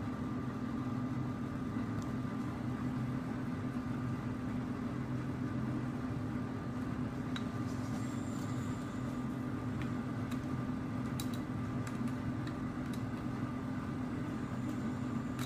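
Steady low mechanical hum of room noise, with a few faint light clicks of plastic keycaps being handled.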